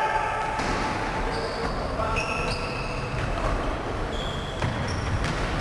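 Basketball bouncing on a sports hall floor during play, with short high squeaks of shoes on the floor and players' voices calling out.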